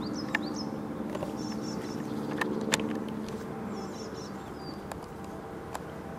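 Small birds chirping over the low steady hum of a vehicle engine, which fades after about four seconds; a few sharp clicks.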